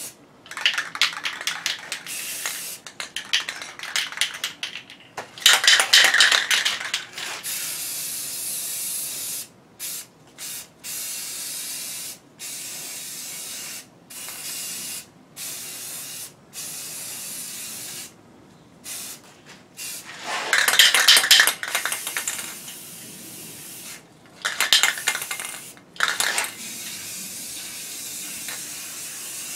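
Aerosol spray paint can hissing in short bursts, switching on and off every second or two, with several louder stretches of rapid rattling between bursts.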